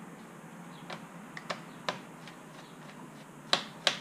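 Small screwdriver clicking and ticking against the screws and plastic underside of an HP G6 laptop while the memory cover is unscrewed: a few light, irregular clicks, then two louder ones close together near the end.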